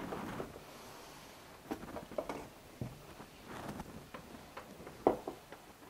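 Quiet handling sounds: a few light knocks and rustles as a plastic pump housing is lifted from its cardboard box and set down on a table.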